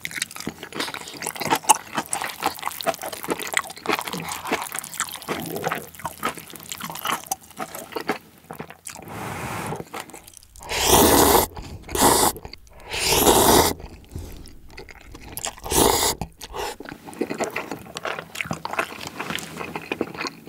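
Close-miked eating: crisp crunching and chewing of kimchi, then about halfway through four loud slurps of jjapaghetti black-bean-sauce cup noodles, followed by wet chewing.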